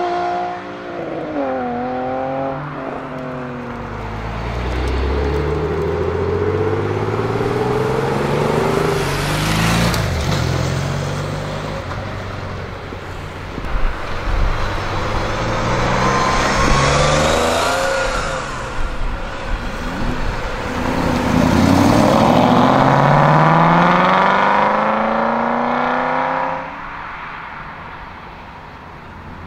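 Sports cars, a Nissan 350Z's V6 first, accelerating hard away one after another. Each engine note climbs in pitch through the revs and steps down at every gear change. The loudest pull comes late and cuts off suddenly.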